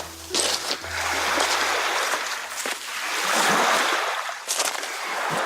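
Sea waves washing onto a shore, each wash swelling and falling away every couple of seconds, with a few sharp splashes. A low hum fades out about a second in.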